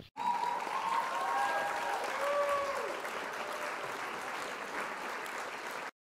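Crowd applause with a few gliding cheers, starting suddenly just after the start and cut off abruptly near the end.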